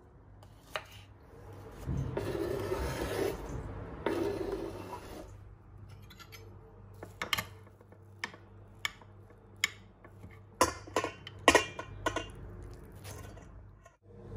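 Kitchen food-prep sounds: a stretch of scraping and rubbing, then a series of sharp clinks, from a knife on a wooden cutting board and a metal spoon working soaked bulgur in a glass dish.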